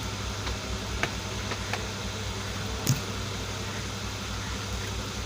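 A steady low mechanical hum, with a few sharp clicks over it; the loudest click comes about three seconds in.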